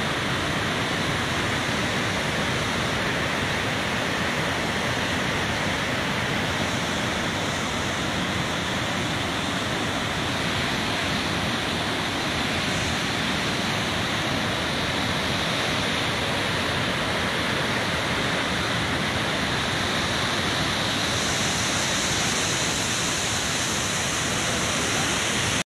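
Waterfall in flood: a torrent of white water pouring over boulders, a steady rush of water noise that never lets up.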